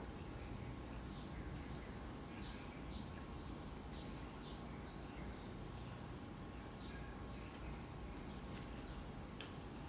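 A small bird chirping over and over, short high notes about every half second, some rising and some falling, with a pause a little past the middle, over a steady low hum.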